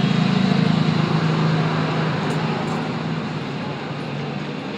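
Steady mechanical hum with a broad hiss, like a running fan or blower, easing off a little after a second or so.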